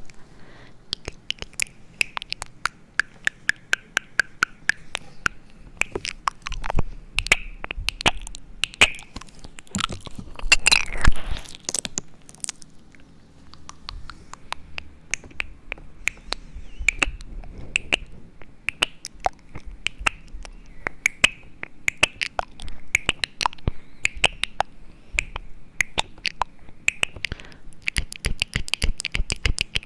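Close-miked ASMR trigger sounds: an irregular run of sharp clicks and taps over soft rustling, with a louder stretch of rustling about a third of the way in.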